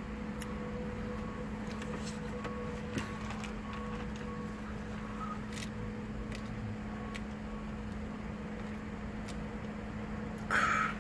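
A soft drink sipped through a straw inside a car cabin, over a steady low hum. Near the end there is one short, loud, rushing sound as the sip ends.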